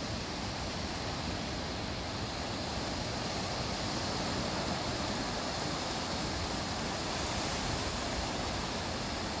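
Small ocean waves breaking and washing up a flat sandy beach: a steady rush of surf that swells a little about halfway through.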